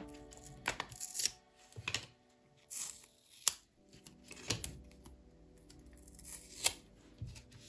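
A photocard's packaging being opened by hand: a series of sharp crinkles and clicks, the loudest about halfway through and near the end, over soft background music.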